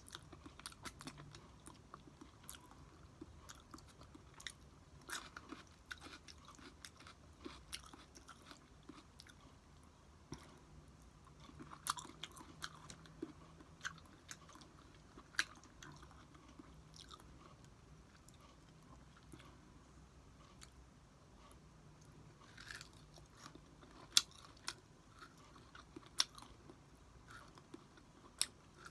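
Close-up chewing of food: wet mouth clicks and smacks with occasional sharper crunches, coming irregularly several times a second.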